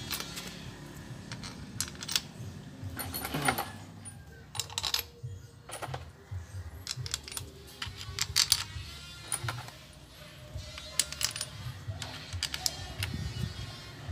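Steel bolts clinking and tapping as they are handled and fitted by hand into the side cover of a Honda Supra/Grand engine crankcase: a run of irregular sharp metallic clicks, each ringing briefly.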